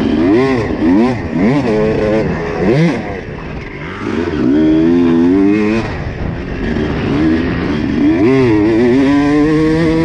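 Honda CR250 single-cylinder two-stroke dirt bike engine with a cone-pipe exhaust, ridden hard. There are quick throttle blips rising and falling over the first three seconds, a held high rev around the middle, and a climbing rev near the end.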